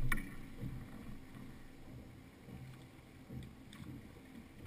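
Low, uneven rumble of the boat's twin Suzuki outboard motors idling, with a handling bump right at the start and a few faint knocks.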